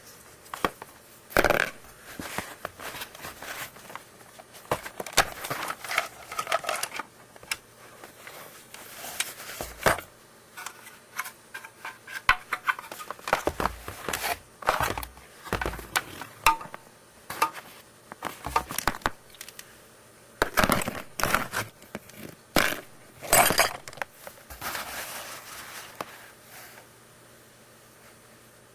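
Hard plastic parts of an oral irrigator being handled and worked on by hand: irregular clicks, knocks and rattles, with several sharper knocks.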